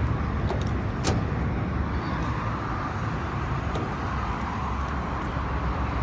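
Steady low rumble, with a sharp click about a second in as the latch on the rooftop HVAC unit's electrical-section access door is turned and the door is swung open.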